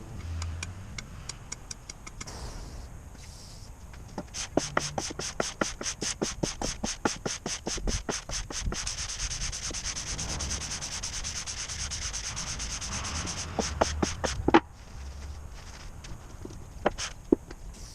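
Cylinder head of an Isuzu 4BD2T diesel being hand-decked across sandpaper glued to a flat surface: fast, even rasping strokes, several a second, that run together into a continuous scrub, then stop abruptly, followed by a few clicks near the end.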